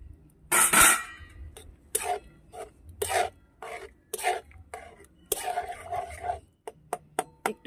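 Long metal spatula scraping and knocking against a metal kadai while stirring and breaking up grated water chestnut in thickened milk. The loudest scrape comes about half a second in, followed by a run of shorter strokes.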